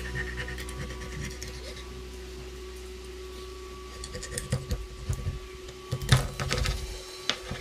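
Kitchen knife cutting a raw jack fish into steaks on a wooden cutting board, the blade knocking against the board several times in the second half, loudest about six seconds in.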